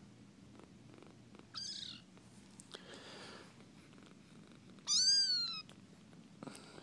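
Kitten mewing: a short, faint, high-pitched mew about a second and a half in, then a louder mew about five seconds in that falls in pitch.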